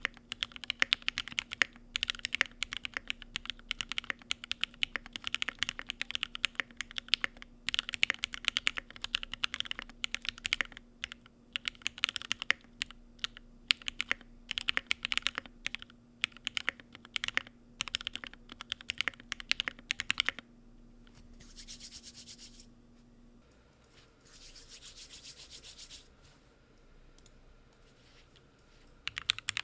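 Typing on a custom 60% mechanical keyboard with Tealios V2 linear switches, GMK keycaps and a thick aluminum case: fast, steady keystrokes for about twenty seconds that then stop. Two soft rushing noises of about two seconds each follow, and typing starts again at the very end.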